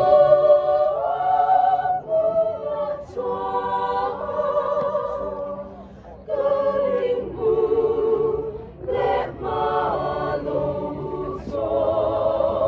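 A mixed choir singing a Mizo song a cappella in long, held notes, with a short break between phrases about six seconds in.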